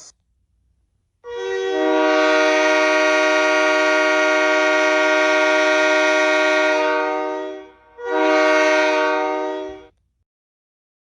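Locomotive air horn sounding a steady chord in one long blast of about six seconds, starting about a second in, then a short blast of about two seconds.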